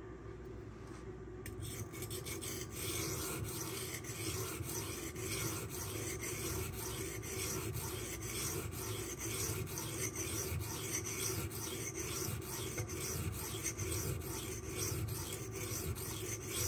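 Knife blade of Magnacut steel being stroked rapidly back and forth on a coarse 240-grit silicon carbide sharpening stone, a steady run of rasping, scraping strokes that begins about a second and a half in.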